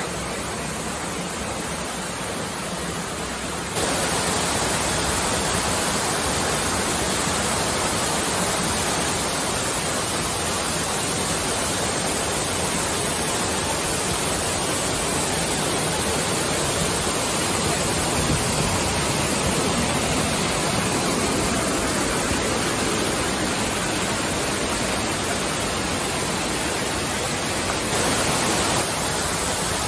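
Steady rushing of a tall waterfall pouring down onto rock, getting louder about four seconds in.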